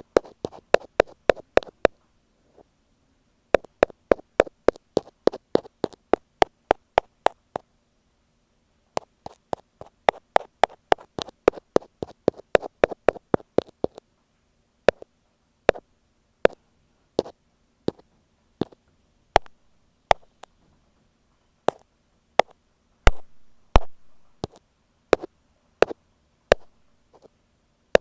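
Ear pick tapping directly on an earphone microphone. Quick runs of taps, about five or six a second, are broken by short pauses; from about halfway the taps slow to single ones, roughly one or two a second.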